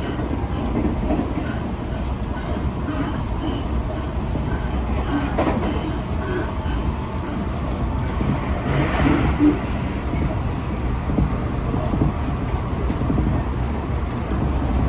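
Inside a Seibu 40000-series electric train at speed: a steady low rumble of wheels running on the rails, with a brief swell of higher-pitched noise about nine seconds in.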